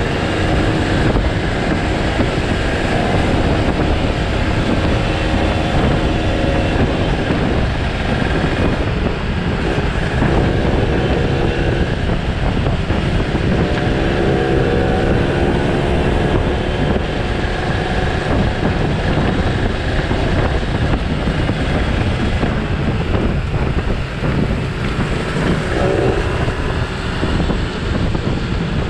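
Motorcycle ride at speed on a Yamaha 125Z fitted with a Kawasaki Ninja R two-stroke single engine: the engine note rises and falls a few times with the throttle, under heavy wind noise on the microphone.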